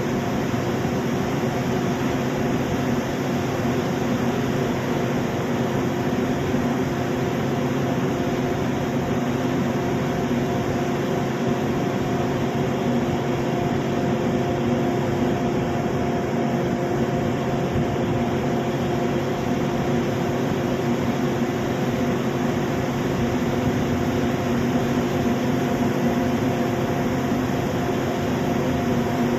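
A cargo ship's engine and machinery running with a steady drone, a constant low hum layered over a broad rushing noise.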